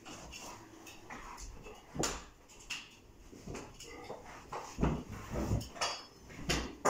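Scattered light knocks and clattering, with a sharper knock about two seconds in and a few heavier thumps about five seconds in.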